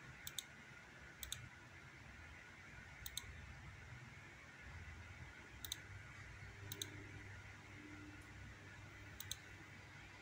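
Computer mouse button clicking: six separate short double clicks, a press and a release each, spaced one to two and a half seconds apart over a faint low hum.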